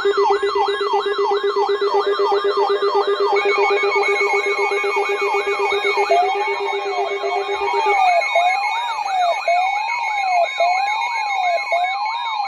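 Several electronic siren tones sounding together: a fast, repeating falling yelp, a steady pulsing lower tone that stops about eight seconds in, and a slower rising-and-falling wail that joins about six seconds in.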